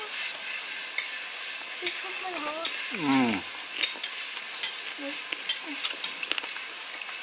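Close-up mealtime sounds: crackly hiss with scattered sharp clicks of chewing and utensils on dishes. A brief falling voice sound is the loudest moment, about three seconds in, with a few short voice fragments later.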